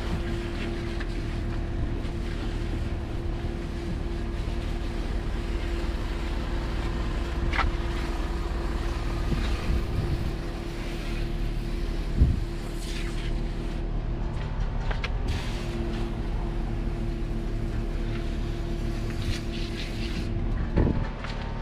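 An engine running steadily, with a held tone that drops out for a few seconds past the middle and a couple of short knocks.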